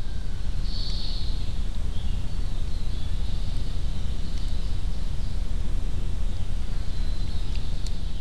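Steady low rumble of wind noise on a trail camera's microphone, with faint high bird calls over it: a short buzzy call about a second in and thin whistles later.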